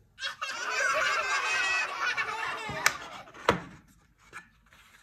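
Many high, wavering voices laughing and squealing together, like a group of children, for the first two to three seconds. Then two sharp knocks of plywood boards about half a second apart, the second louder.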